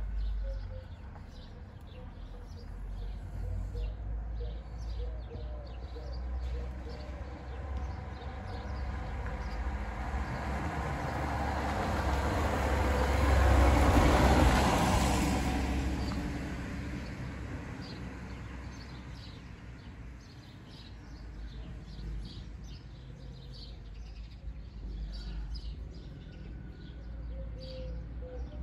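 A passing vehicle's noise swells, peaks about halfway through and fades away, over a steady low rumble, with faint bird chirps throughout.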